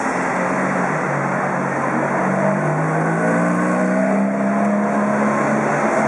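Ferrari V8 spider's engine accelerating past, its pitch climbing steadily as it pulls through a gear, over street noise.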